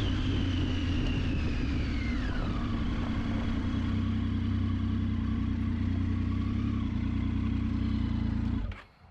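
Triumph Tiger 800XC's three-cylinder engine running with a steady low hum, while a high whine slides down in pitch about two to three seconds in as the bike slows. The sound cuts off abruptly near the end.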